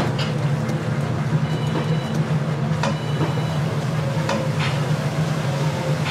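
Steady low hum of commercial kitchen equipment, with a few light clicks and taps from plating.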